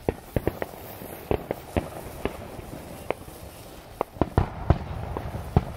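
A firework on a handheld stick burning: a steady hiss of sparks broken by a dozen or so sharp, irregularly spaced crackling pops.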